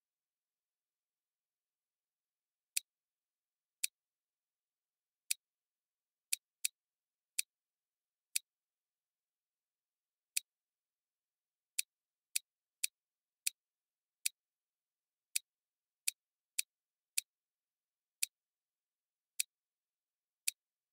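A string of about twenty short, sharp clicks starting about three seconds in, spaced irregularly between a third of a second and two seconds apart, with dead silence between them: clicks made while working a computer program on screen.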